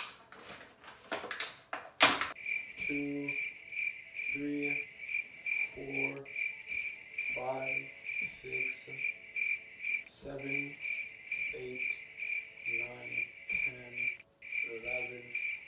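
Crickets chirping in a steady, rapidly pulsing trill, the stock 'crickets' sound effect for an awkward silence. It begins after a couple of seconds of clicks and rustles from handling fruit, which end in a sharp click.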